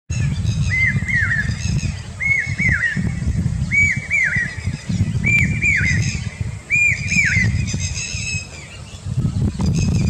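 Common hawk-cuckoo (brain-fever bird) calling: five short phrases of shrill notes, each repeated about a second and a half apart, over a steady low rumble.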